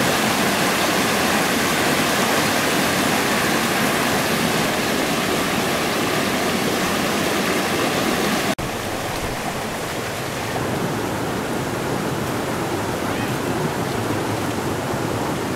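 Rushing water of rocky river rapids: a steady, loud wash of white water. An abrupt cut about halfway through leaves a slightly quieter, duller river flow.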